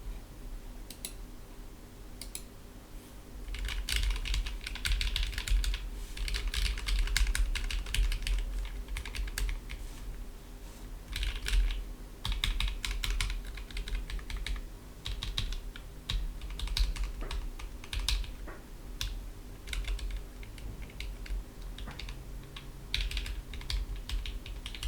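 Typing on a keyboard fitted with PBT keycaps: runs of quick keystrokes with brief pauses between them.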